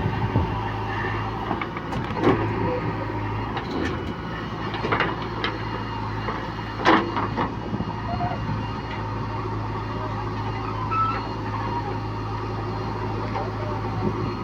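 Heavy-equipment diesel engine running steadily, with a few short knocks about two, five and seven seconds in.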